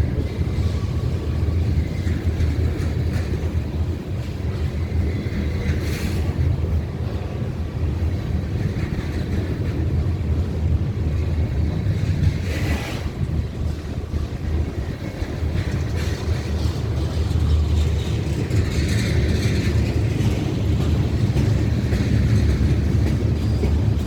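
Freight train rolling past: a steady low rumble of wheels on rail, with a couple of sharp clanks.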